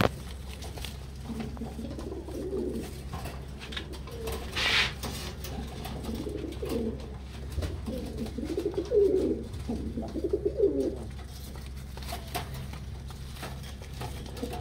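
Beauty Homer pigeons cooing in bouts, low warbling coos that come again and again, over a steady low hum. There is a brief rustle about five seconds in.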